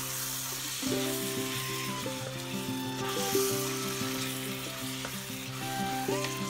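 Minced meat sizzling as it fries in a pan and is stirred with a wooden spatula, over background music.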